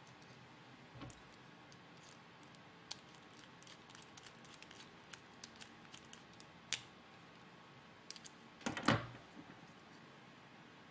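A small screwdriver driving a screw into a plastic robot-kit part: scattered light clicks and ticks of the screw and parts being handled. A louder knock with a brief rustle of handling comes about nine seconds in.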